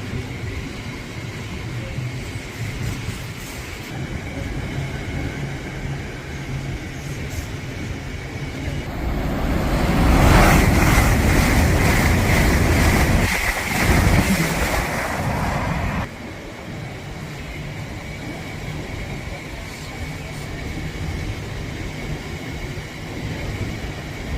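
Train running through a station. There is a steady hum with a high tone, then from about ten seconds in a train passes close with a loud rush and rapid clatter for about six seconds, cutting off suddenly.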